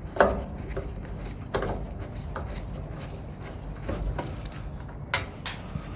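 A few scattered sharp clicks and knocks of hand tools and metal parts being handled while an appliance is unscrewed, over a steady low background rumble.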